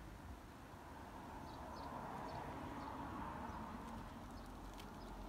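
Faint outdoor background noise, a steady low rumble with a few light clicks.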